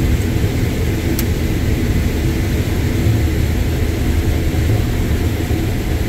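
Combine harvester running steadily while harvesting standing corn, a constant low drone of engine and threshing machinery heard from inside the cab. A single small click about a second in.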